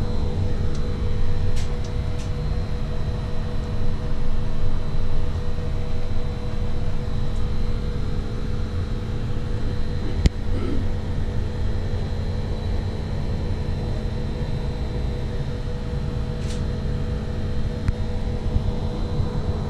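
Wind buffeting the microphone on an open ship's deck over the steady hum of the ship's machinery, with one sharp click about ten seconds in.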